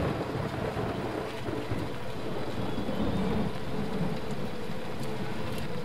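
Steady rain falling, with low rumbling thunder.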